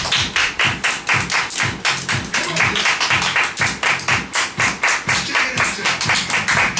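Hands clapping in a quick, steady rhythm, about four claps a second.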